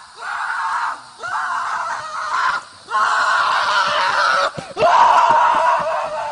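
A series of about five loud, drawn-out screams, each lasting about a second and starting with a short upward swoop, the last ones the loudest.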